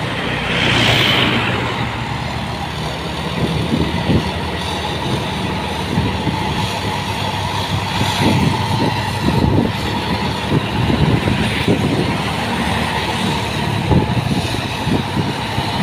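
Heavy vehicle engine running amid road traffic, with a brief hiss about a second in; no horn sounds.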